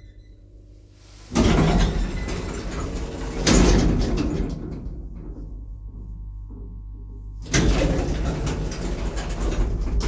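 Automatic car door of a 1980s Končar traction lift, driven hard by its door operator: sudden loud clunks and rattling about a second in and again at about three and a half seconds, then another heavy slam near the end that carries on rumbling.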